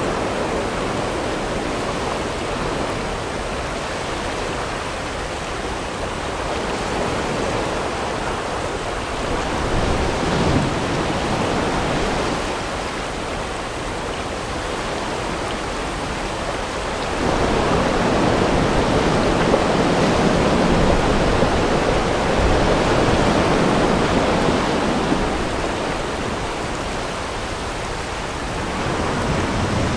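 Whitewater river rapids rushing around the rafts, a steady wash of water noise that grows louder a little past halfway and eases again near the end.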